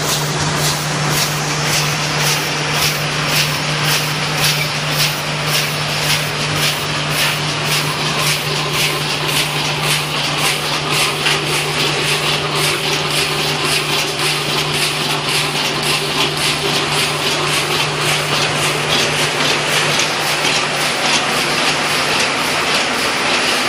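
Automatic toilet paper single-roll packing machine and its conveyors running: a steady mechanical clatter with an even clicking of about two strokes a second over a low hum, the hum dropping away near the end.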